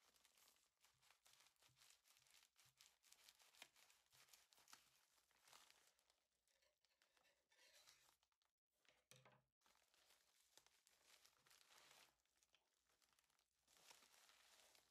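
Faint crinkling and snipping as a plastic mailer envelope and its bubble wrap are cut open with scissors and handled, broken by a short pause a little past the middle.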